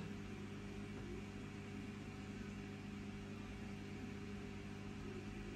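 Steady low electrical hum over a faint hiss, as from a marine aquarium's water pump running.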